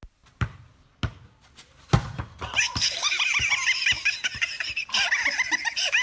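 A few sharp knocks of a basketball bouncing on concrete, then from about two and a half seconds in, hearty laughter that goes on continuously.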